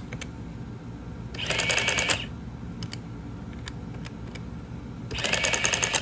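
Canon P23-DHV printing calculator: a few key presses clicking, then the print mechanism chattering in two short bursts, one about a second and a half in and one near the end, each under a second long.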